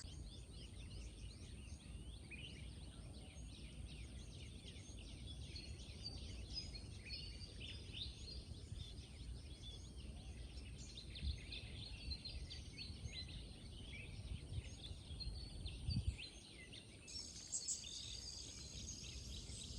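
Faint outdoor countryside ambience: many birds chirping in short calls throughout, over a steady high insect drone that stops about three seconds before the end, with a low rumble underneath.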